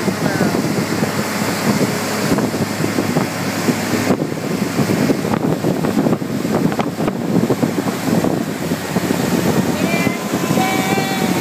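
Boat's outboard motor running steadily at towing speed, mixed with the rush of the churning wake and wind buffeting the microphone.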